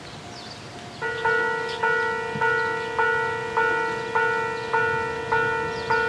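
Railway level crossing warning bell starting about a second in and ringing in a steady repeated ding, a little under two strikes a second, signalling an approaching train.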